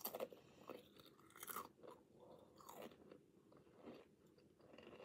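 A person chewing a crunchy, crisp snack with their mouth close to the microphone: faint, irregular crunches.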